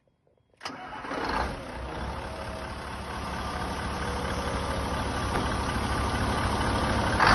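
Iveco Turbostar 190-48 truck's 18-litre V8 diesel, exhaust pipes open, comes in abruptly about half a second in, swells briefly and then runs steadily at idle, growing slowly louder.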